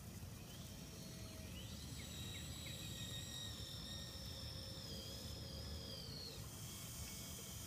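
Small electric winch motor of a radio-controlled crawler crane whining faintly as its bucket is worked in sand: a thin high whine rises in pitch about one and a half seconds in, holds steady, and stops about six seconds in, over a steady low background rumble.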